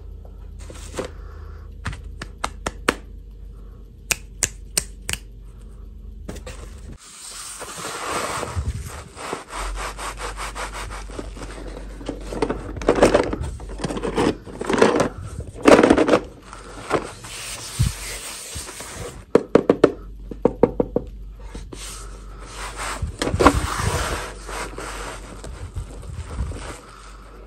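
A cardboard box handled by hands over artificial turf: a run of sharp taps and clicks in the first few seconds, then longer stretches of cardboard rubbing and scraping, with louder surges as the box is turned and gripped.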